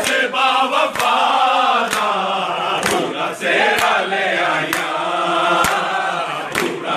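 A crowd of men chanting together, with unison handclaps about once a second.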